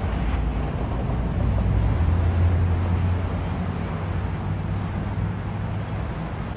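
A vehicle engine's low, steady hum that grows loudest about two seconds in and then slowly fades away.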